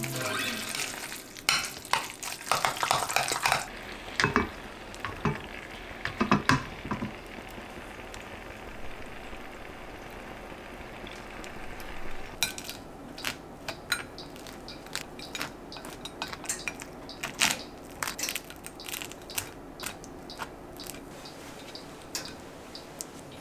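A metal spoon stirs and scrapes a thick egg, avocado and mayonnaise mixture in a glass bowl, clicking against the glass. About halfway through, shrimp and garlic sizzle in oil in a frying pan, with a steady hiss and many sharp pops and crackles.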